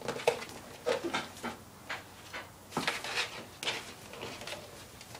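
A cardboard cereal box being batted, pushed and scraped across a tile floor by a kitten: irregular rustling, scraping and light knocks, busiest around the middle.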